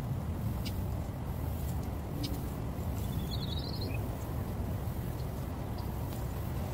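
Steady low outdoor rumble, with a brief high bird chirp about three seconds in and a few faint clicks.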